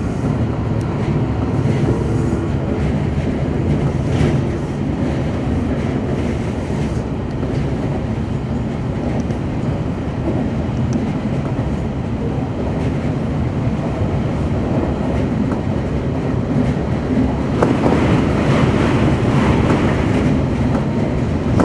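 Semboku Rapid Railway 7020-series electric train running at speed, heard from inside the leading car: a steady rumble of wheels on rail with a few clicks. The running noise grows louder and brighter near the end.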